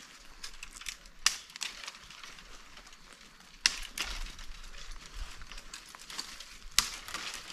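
Dry twigs and thin branches of a fallen tree being gathered and snapped by hand for kindling: a crackling rustle of dry wood with three sharp snaps, about one, three and a half and nearly seven seconds in.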